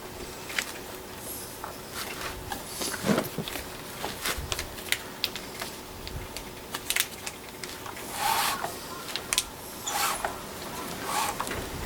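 Scattered sharp clicks and short scraping rubs at no regular pace, with a faint steady hum underneath.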